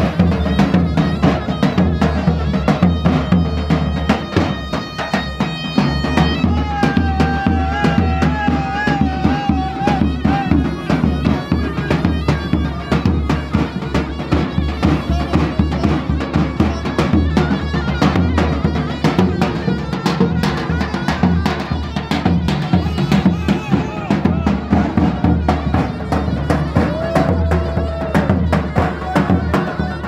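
Folk music on davul and zurna: a large double-headed davul drum beaten with a stick in a steady dance rhythm, under a shrill wavering reed melody.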